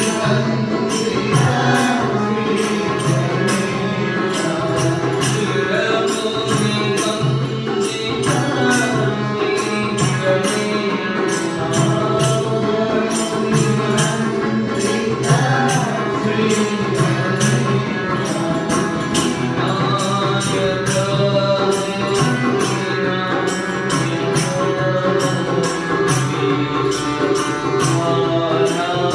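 Devotional bhajan singing with a steady, quick beat of jingling percussion.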